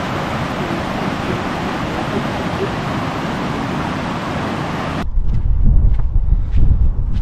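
Rushing river water, a steady even rush. About five seconds in it cuts to wind buffeting the microphone with a fluctuating low rumble.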